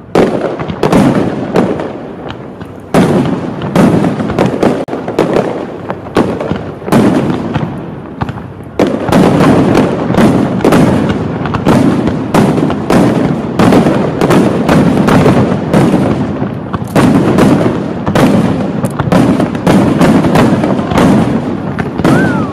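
Fireworks display: a rapid barrage of bangs and crackles, with the shells coming almost without a break from about nine seconds in.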